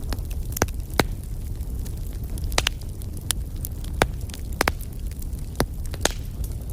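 Wood fire burning: sharp crackles and pops at irregular intervals, about two a second, over a steady low rumble of the flames.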